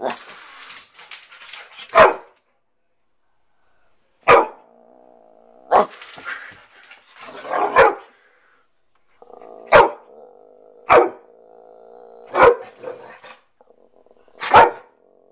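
Yellow Labrador retriever barking in play: about eight sharp single barks, one to two seconds apart, with low growling between them.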